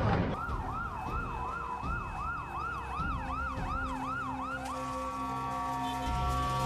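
Emergency vehicle siren in a fast yelp, its pitch sweeping down and up about two to three times a second, then switching to steady held tones about two-thirds of the way through.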